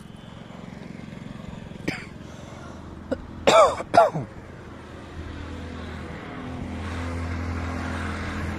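Two short, loud cries about three and a half seconds in, half a second apart, over a low drone. In the second half a motor vehicle's engine drone grows steadily louder, as if approaching.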